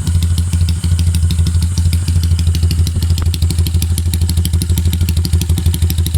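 Yamaha TMX 155 motorcycle's single-cylinder four-stroke engine idling steadily, its exhaust a fast, even run of pulses.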